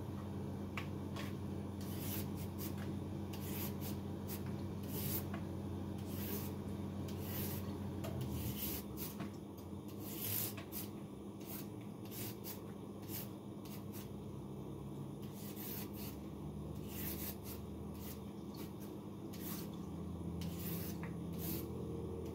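Irregular short rubbing and rustling strokes of hands working food at a kitchen counter, made over a steady low hum.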